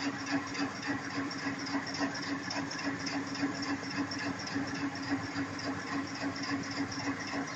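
VL60k electric locomotive standing with its auxiliary machines running: a steady hum with an even, fast pulsing over it, about four beats a second.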